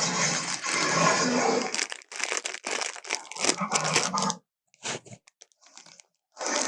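Harsh crunching and tearing noises from a made-up Carnotaurus sound effect: one long grating stretch, then a run of choppy bursts, a few faint clicks, and a new loud burst near the end.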